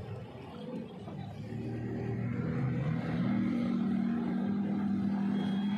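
Jet ski engine running at speed. Its pitch climbs about a second and a half in and then holds steady while the sound grows louder.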